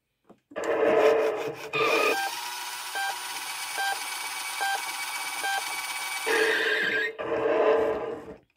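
Road Rippers toy Hummer HX pushed back and forth on a wooden surface while its built-in speaker gives out electronic sound effects. A harsh rasping sound comes first, then a steady electronic tone with a short beep about every 0.8 seconds. A brief loud high tone and another rasping stretch follow near the end.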